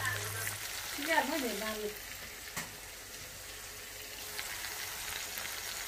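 Chopped tomato and onion sizzling steadily in hot oil in an iron kadai. About a second in there is a brief wavering tone, and later a single sharp click.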